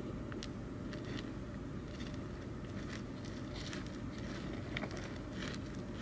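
Common rain frog digging into soil: scattered faint crackles and scratches of loose soil over a steady low hum.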